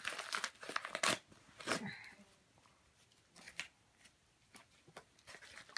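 Rustling and sharp clicks of parcel packaging being handled during unboxing, busy for the first two seconds, then a few scattered taps.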